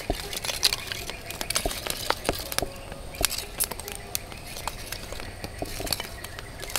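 Lumps of charcoal clinking and knocking against each other as they are stacked by hand onto a small wood fire: many sharp, irregular clicks.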